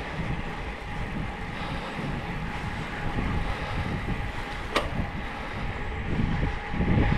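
Wind rumbling on an action camera's microphone as a road bike climbs in a group, with steady riding noise underneath. There is one sharp click about five seconds in, and the rumble swells near the end.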